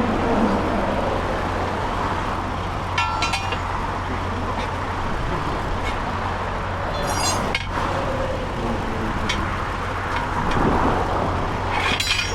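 Steady rumble of interstate traffic passing, with a few short metallic clinks, about three seconds in, around seven seconds in and near the end.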